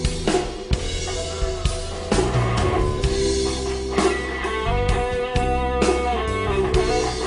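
Electric guitar improvising a solo over a rock/blues backing track with bass and drums, holding sustained notes.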